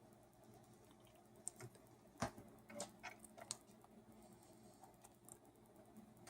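Faint, irregular clicks and light taps from a direct-drive turntable's mechanism during an automatic-return demo, over a low steady hum.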